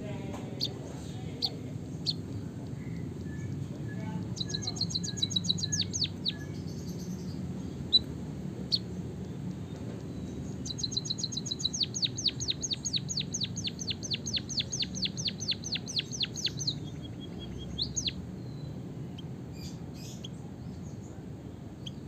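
White-headed munia singing canary-like rolling trills: a short run of rapid high notes about four seconds in and a longer one of about six seconds from about eleven seconds in, with scattered single chirps between, over a steady low background hum.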